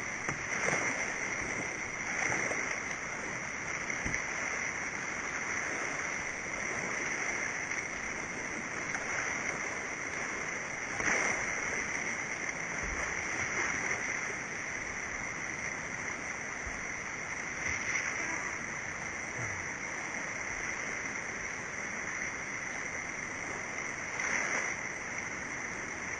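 Whitewater rapids of a small river in flood, running at very high flow, rushing steadily, with a few brief louder moments.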